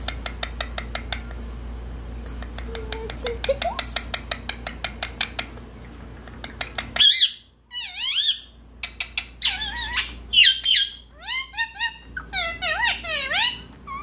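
Indian ringneck parrot calls: from about seven seconds in, a string of chirps and squawks sweeping up and down in pitch. Before that comes a rapid run of clicks, about five or six a second.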